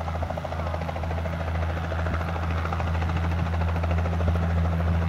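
Light two-blade helicopter flying low, its rotor chopping fast and evenly over a steady low engine hum, growing a little louder.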